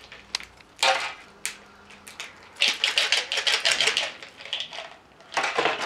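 Small plastic snack packaging handled in the hands, crinkling and clicking in three bouts: briefly about a second in, a longer stretch from about two and a half to four seconds, and again near the end.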